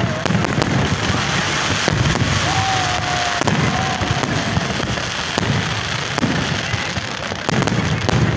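Aerial fireworks bursting overhead: a loud, dense, unbroken crackle of many overlapping pops and bangs.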